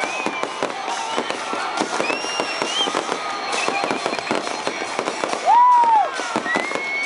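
Fireworks display crackling and popping densely, with voices calling out among the crowd. About five and a half seconds in, a loud whistle rises and falls for about half a second.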